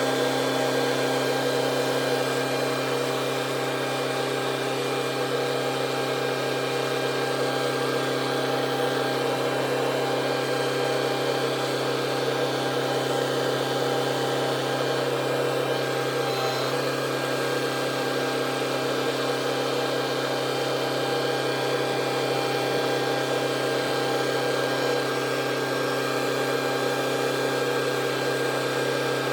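Tractor engine running steadily at a constant speed, a continuous drone with a low hum, changing only slightly about 16 seconds in.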